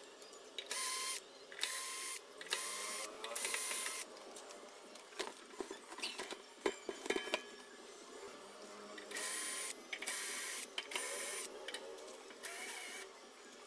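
12-volt cordless drill-driver whirring in short bursts as it backs screws out of a metal amplifier cover: about four bursts, then a few seconds of sharp clicks and rattles of screws and metal being handled, then another run of four or five bursts.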